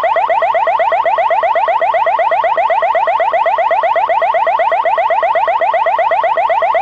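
Amseco VSD-208 siren/voice driver sounding one of its alarm tones through a Simplex LifeAlarm speaker: a loud, fast-repeating rising sweep, about ten sweeps a second, held steady.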